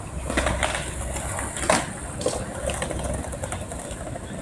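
Skateboard wheels rumbling over concrete, with several sharp clacks of the board, the loudest a little under two seconds in.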